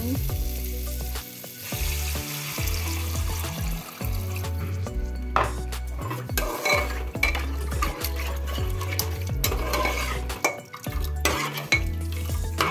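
A metal spatula stirs and scrapes a sizzling dal, tomato and spice mixture in a pressure cooker, with many sharp clinks against the pot. Background music with a steady bass line plays underneath.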